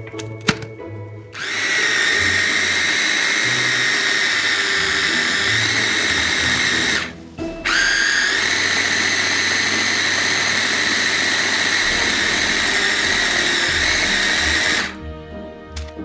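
Electric mini chopper-blender motor running in two pulses, about six seconds, a brief stop, then about seven more seconds, its whine rising in pitch as it spins back up. It is blending crushed Oreos, baking powder and milk into batter.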